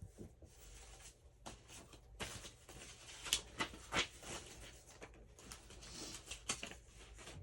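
Paper cards and tags being handled and sorted: soft rustling with scattered light clicks and taps, a few sharper ones around the middle.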